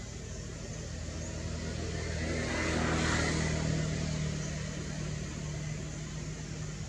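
A motor vehicle passing by: a low engine hum and road noise that swell to their loudest about three seconds in, then fade.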